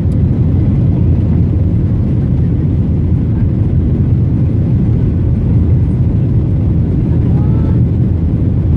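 Airliner cabin noise: a loud, steady low rumble of engines and airflow heard from inside the cabin.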